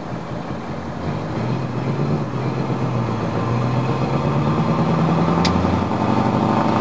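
Scania 164 580's V8 diesel heard from inside the cab, pulling harder from about a second in, its drone growing steadily louder as the truck closes on the vehicles ahead. A single sharp click near the end.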